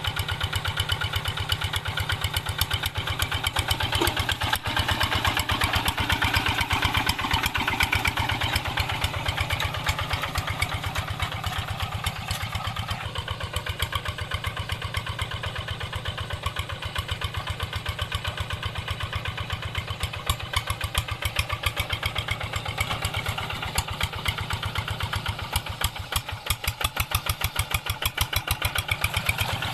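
Hand tractor's single-cylinder diesel engine running steadily with a rapid, even chugging beat. The sound shifts and drops slightly in level about halfway through.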